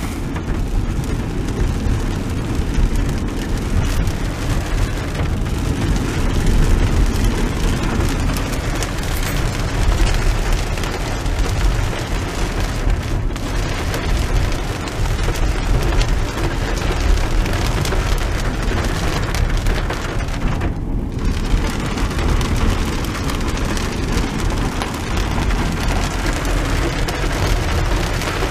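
Heavy rain falling on a moving car's roof and glass, heard from inside the cabin, over a steady low rumble of tyres on the wet road. The high hiss drops away briefly about two-thirds of the way through.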